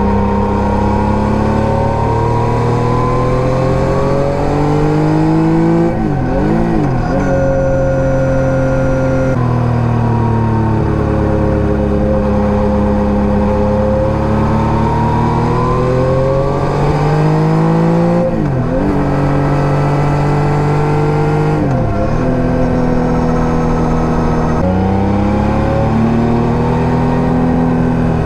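Yamaha MT-09 Gen 3's 890 cc inline three-cylinder engine through an SC Project STR-1 aftermarket exhaust, riding on the road: engine pitch rising and falling as it accelerates and slows, with several sharp gear changes.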